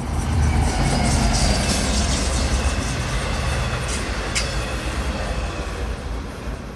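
A bi-level diesel push-pull commuter train passing close at speed, with a heavy rumble of wheels on rail and rattling coaches. There is one sharp clank about four and a half seconds in, and the sound fades near the end as the train moves away.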